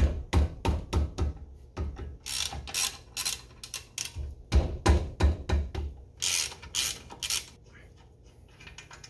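A wrench ratcheting on a car's 15 mm brake caliper bracket bolts. Two bursts of rapid clicking come about two seconds in and again about six seconds in, with sharper metal knocks between them.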